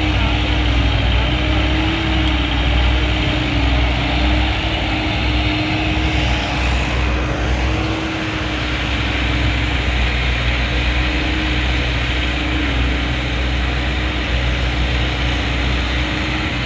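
JCB excavator's diesel engine running steadily: a loud, deep, continuous drone with a steady hum over it.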